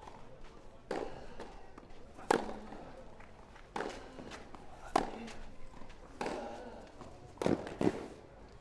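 A tennis rally: tennis balls struck by rackets in a steady back-and-forth, a sharp hit about every second and a quarter, with two quick knocks close together near the end.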